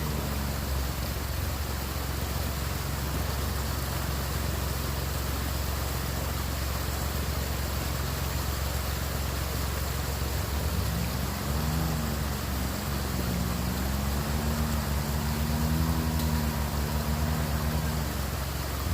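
Vehicle engine running steadily with a low rumble under a constant hiss. About halfway through, its pitch rises and falls for several seconds as the revs change.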